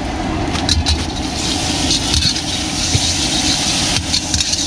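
Food sizzling in an iron wok over a loud, steady gas burner, with a metal spatula scraping and striking the wok a few times.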